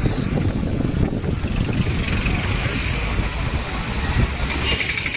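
Wind rumble on the microphone over traffic noise from a moving road vehicle, with a vehicle horn starting to sound near the end.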